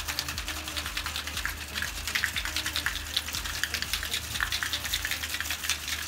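Ice cubes rattling inside a metal cocktail shaker being shaken hard: a rapid, continuous clatter of ice against the tin.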